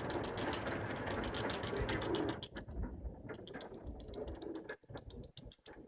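Pigeon wings clapping and flapping in a rapid, even run of claps. They come thick and loud for the first two and a half seconds, then thin out and break up.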